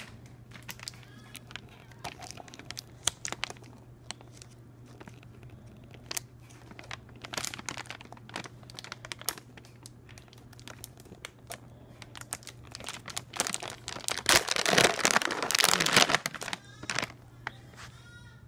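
Scattered crinkling and crackling, swelling into a dense rustling burst about three-quarters of the way through.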